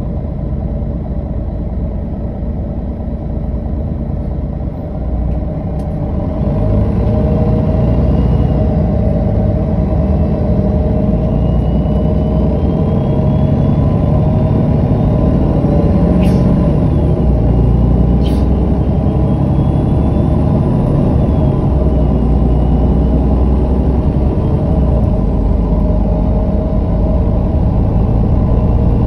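MAN NG313 articulated bus's diesel engine running steadily, then about six seconds in growing louder as the bus pulls away and accelerates, with whining tones climbing slowly in pitch as it gathers speed. Two short clicks come about two seconds apart midway through.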